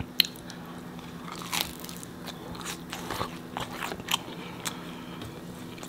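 Biting into and chewing a slice of homemade pizza with a crispy crust, close to the microphone: scattered crunches and crackles, the sharpest just after the start.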